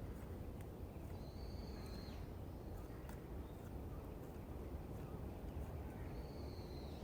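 A bird calling twice: a thin, high whistled note about a second long, slightly bending up and then down, about a second in and again near the end, over a low steady outdoor rumble.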